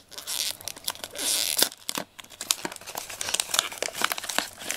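Paper wrapping on a chocolate gift box crinkling and tearing as hands work it open. Two longer rustles in the first second and a half, then a run of short, sharp crackles.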